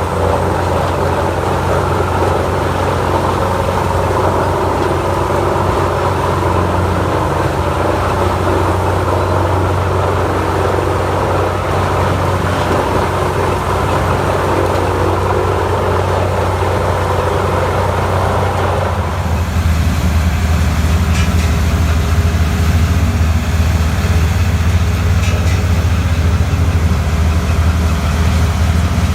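Heavy machine's engine running steadily with a low hum. About two-thirds of the way in, a higher rushing noise drops away and the low engine hum becomes stronger.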